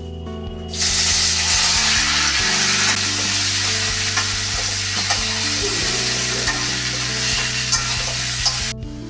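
A loud, steady hiss, like food sizzling in a pan, starting about a second in and cutting off abruptly near the end, over background music with long held notes.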